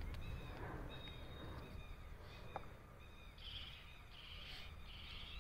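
Faint night-time outdoor ambience: short high chirps repeating about twice a second, a buzzy high trill from about three and a half seconds in, and a low rumble underneath.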